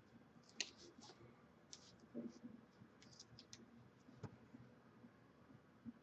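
Faint, short scratches of an inking pen drawing lines on paper, with a few light clicks and taps, the sharpest about half a second in.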